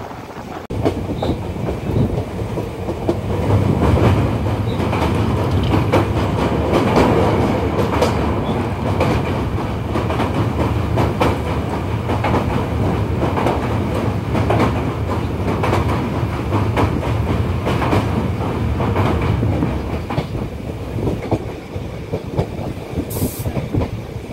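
Train running at speed, heard from an open carriage window: wheels clattering over the rails with a steady rumble. It gets louder about a second in, as the train crosses a steel truss bridge, and eases near the end.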